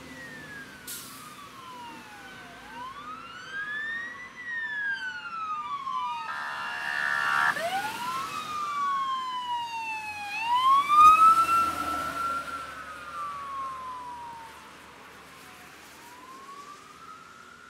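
Electronic sirens on emergency response vehicles, two or more wailing up and down in pitch at once, with a short pitched horn blast about six seconds in. Tyres hiss on the wet road as the vehicles pass, loudest about eleven seconds in.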